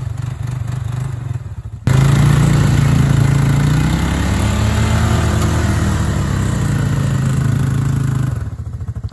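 An off-road vehicle's engine idling, then revved hard for about six seconds from about two seconds in, with a rush of noise over the engine, before falling back to idle near the end.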